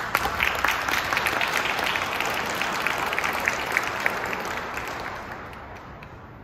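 Audience applauding. The clapping starts abruptly and dies away over the last second or so.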